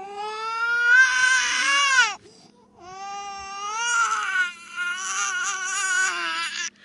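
An infant girl crying hard, played backwards: two long wails, each swelling in and cutting off suddenly, with a short gap between them.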